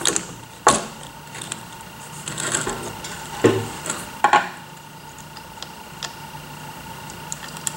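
Screwdriver and small hardware being handled against a plastic (HDPE) robot base plate on a wooden workbench: four sharp knocks and clatters in the first half, with softer scraping and fiddling between them.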